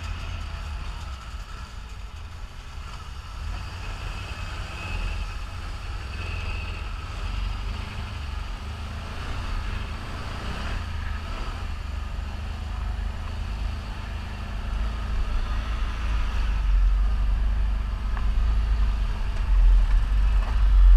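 ATV engine running on a ride, with heavy low wind rumble on the microphone that grows louder over the last several seconds.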